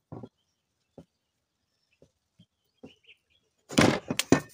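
Hand tools clicking and tapping on a BMW M52 oil pump housing during disassembly, a few light clicks spread out. Near the end comes a louder clatter of several knocks as the metal pump housing and tools are set down on the bench.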